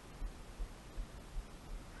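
Low dull thumps on a worn action camera's microphone, about two or three a second, over a faint steady hiss.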